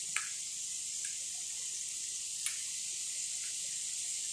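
Ghee frying in a pan, a steady sizzling hiss with a few small pops.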